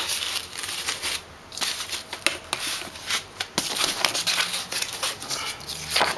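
Rustling and crackling from a cardboard box being handled close to the microphone, with many irregular small clicks and rubs.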